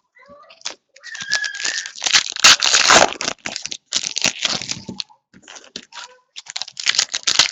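Foil wrappers of 2015-16 Hoops basketball card packs being torn open and crinkled: a series of quick rips and rustles, loudest about two to three and a half seconds in.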